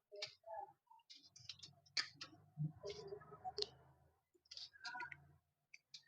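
Faint scattered clicks and handling noise from small plastic front-panel connectors and cables being worked by hand on a PC motherboard. Three sharper clicks stand out, about a second apart.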